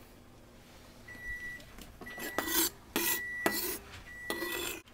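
A garlic clove rasped back and forth across a small metal hand grater, three scraping strokes about a second apart.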